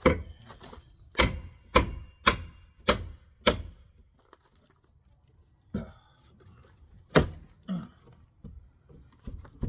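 Hammer blows on wooden wall framing, knocking out old sister studs: six sharp strikes about half a second apart, a pause, then a few more scattered blows.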